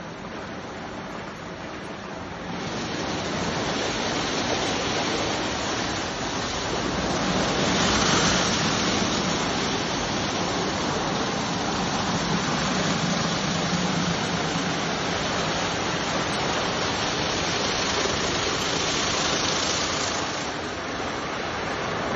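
WashTec roll-over car wash in operation: rotating brushes and water jets washing a car, a steady rushing spray that swells about two seconds in and dips briefly near the end.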